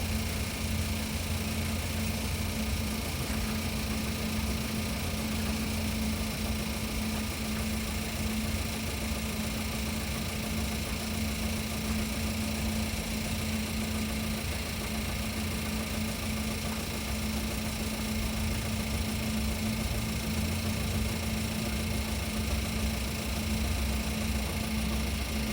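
Engine idling steadily, with the knock that the recording is made to capture.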